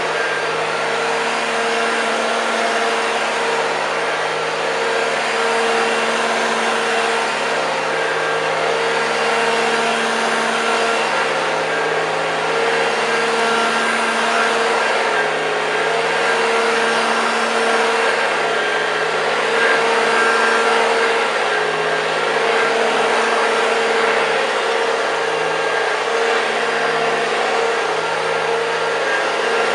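1981 Hoover Junior U2128 hard-bag upright vacuum cleaner running on carpet: a steady motor whine over an even hiss. It runs smoothly and sounds brand new.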